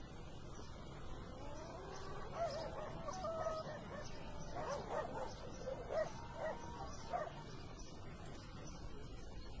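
A dog whining and yelping in short, wavering calls that glide up and down in pitch, over a steady background hiss.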